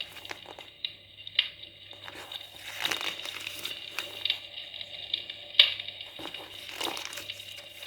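Paper rustling and crinkling as the pages of a printed catalogue are handled and turned, with a few sharp paper snaps.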